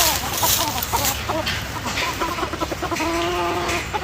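A flock of free-range chickens clucking, with many short overlapping calls and one longer drawn-out call about three seconds in.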